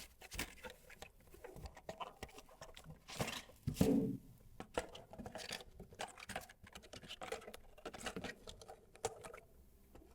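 Close-miked hands handling packaging and a product during an unboxing: a run of light taps, scratches and rustles at an uneven pace, with a louder knock about four seconds in.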